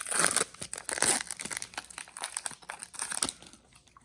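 Foil booster-pack wrapper of a Pokémon trading card pack crinkling and being torn open by hand, a dense crackling that dies away a little after three seconds.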